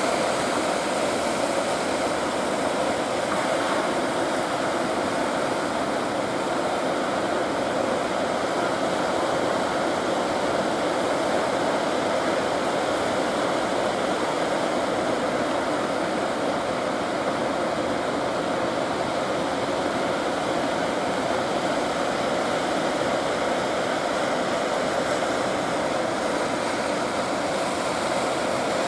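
Surf washing through a river mouth, a steady, unbroken rushing noise.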